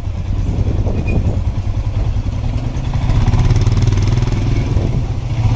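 Motorcycle engine running while the bike is ridden, a steady low pulsing drone that grows louder about halfway through.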